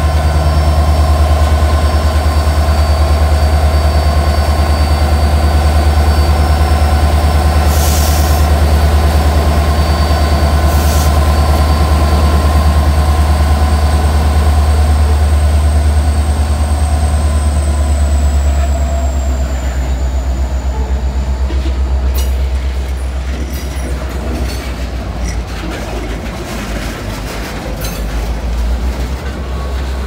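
Norfolk Southern GP60 diesel locomotive passing close: a loud, low engine drone with a steady high whine. About two-thirds of the way through, the whine drops in pitch and the drone eases as the locomotive goes by. Freight cars then roll past with repeated wheel clicks.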